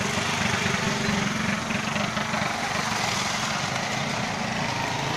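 Motorcycle and motor-rickshaw traffic heard from a moving vehicle: a steady engine hum under wind and road noise.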